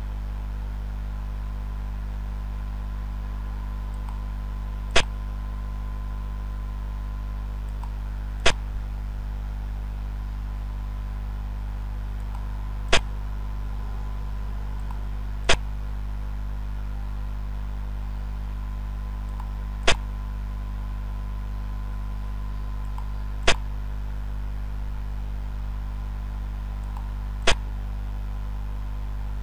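Sharp piece-move click sound effect of a Xiangqi board replay, heard seven times a few seconds apart, one per move, over a steady low hum.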